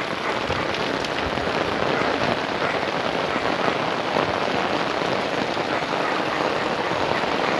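Heavy rain pouring steadily onto a flooded street, a dense hiss of drops splashing into standing water.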